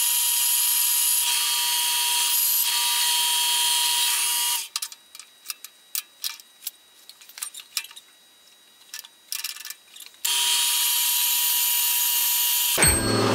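Metal-cutting bandsaw running and cutting through the lathe's cast bearing support, a steady whine over a high hiss. It stops about four and a half seconds in, leaving a few light clicks and knocks as the part is handled. Then it cuts again for a few seconds until music begins just before the end.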